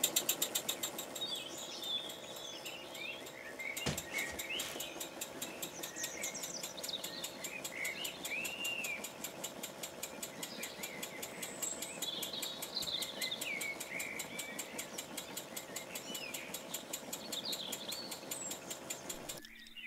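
Small wig-wag oscillating engine running at a steady speed, giving a rapid, even train of exhaust puffs and ticks, with high chirping squeaks over it.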